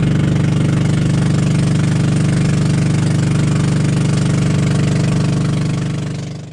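Engine of a small outrigger boat (bangka) running steadily at close range with a fast, even pulse, fading out near the end.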